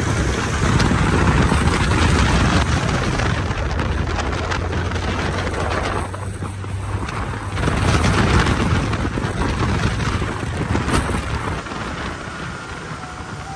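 Open dune buggy driving fast over sand: the engine runs steadily under heavy wind buffeting on the microphone, easing briefly about six seconds in and fading gradually near the end.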